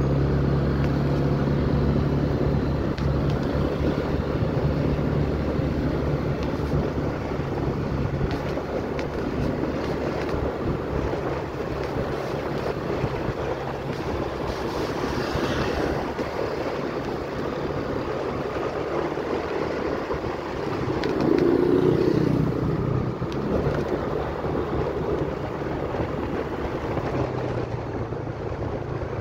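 A vehicle's engine running steadily while driving, with wind noise on the microphone and road noise. There is a brief louder swell about two-thirds of the way through.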